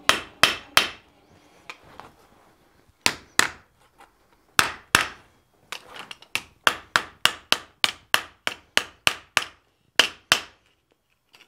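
Hammer blows on red-hot folded sheet steel lying on the anvil face, flattening the piece: sharp metallic strikes with a short ring, some spaced out, then a steady run of about three blows a second, ending with two last blows.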